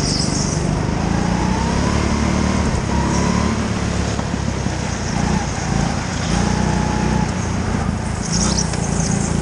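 Petrol go-kart engine running at racing speed, its note rising and falling as the kart accelerates and lifts through the corners, with a brief high hiss near the end.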